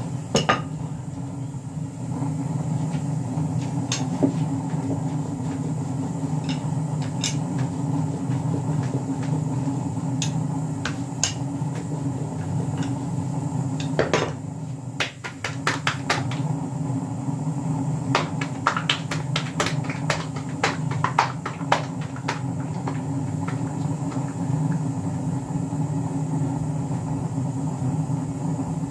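Steady low hum with scattered sharp clicks and clinks of cookware being handled, coming thickest about two-thirds of the way through.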